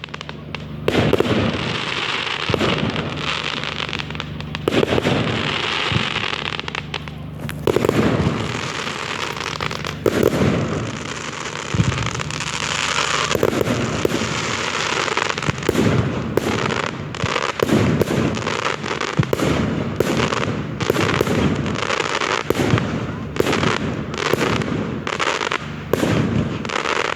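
Fireworks display: repeated bangs of aerial shells over a continuous crackle, the bangs coming thicker and faster in the second half.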